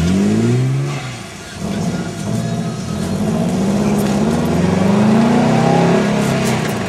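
Car engine under hard acceleration, its revs climbing, dropping back briefly about a second and a half in, then rising and easing again as it goes up through the gears.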